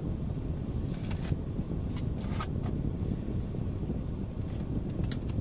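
Steady low rumble of a moving car's road and engine noise, heard inside the cabin, with a few light clicks and rustles.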